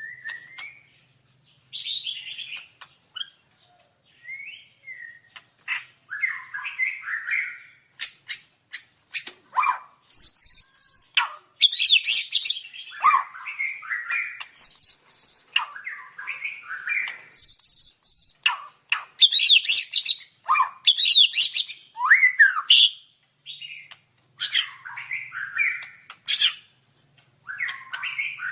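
White-rumped shama (murai batu) singing: a varied song of quick phrases of whistles, glides and rapid chattering notes, broken by short pauses, with a clear high whistle repeated three times midway.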